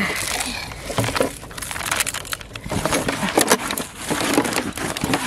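Hands crumbling dry noodles and stirring them into a dry, powdery fishing-bait mix in a plastic basin: a dry crackling rustle with many small clicks.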